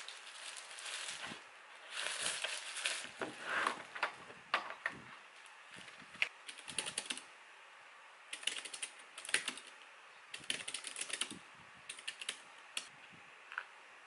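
A frosted plastic sleeve rustles and crinkles as a Keychron K3 low-profile mechanical keyboard is slid out of it. Then come short bursts of typing on the keyboard's keys, a quick run of keystrokes roughly every second or two, ending in a single key press.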